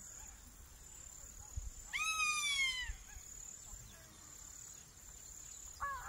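A crested hawk eagle gives one loud, ringing scream, a bit under a second long, about two seconds in; it rises briefly and then slides down in pitch. A steady high-pitched insect drone runs underneath.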